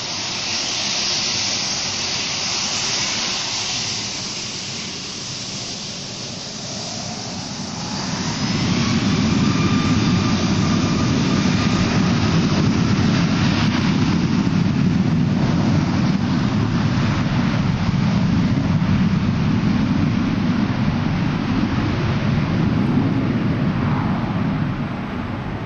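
Boeing 757's Rolls-Royce RB211 turbofan engines: a high whining hiss at low power, then about eight seconds in they spool up to takeoff thrust with a rising whine and a loud, steady low roar as the airliner starts its takeoff roll.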